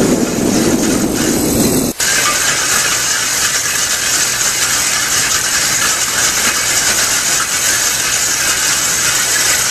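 Excavator-mounted hydraulic drum cutter milling concrete: the rotating toothed drum grinds steadily against the wall. About two seconds in the sound drops out for a moment and comes back higher and hissier.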